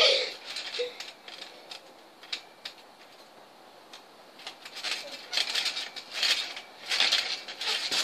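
Children jumping on a trampoline: rhythmic creaks and rattles of the mat and springs, about two a second, starting about halfway through after a quieter stretch with a few scattered clicks.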